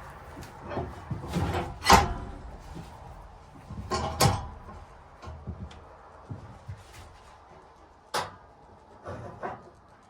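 A few irregular knocks and clunks, the loudest about two and four seconds in, some with a brief metallic ring, and a lighter knock near the end; no engine is running.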